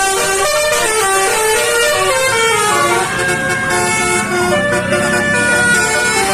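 Telolet horn on a vehicle playing a tune: several horn tones sounding together, stepping from note to note in quick succession, over a low engine rumble.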